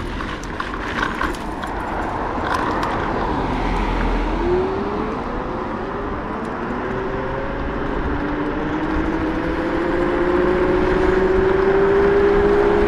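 Kugoo M4 Pro electric scooter accelerating: its motor's whine rises slowly and steadily in pitch as speed builds, over a constant rush of wind and tyre noise. In the first few seconds there are several sharp rattles and knocks from riding over bumps.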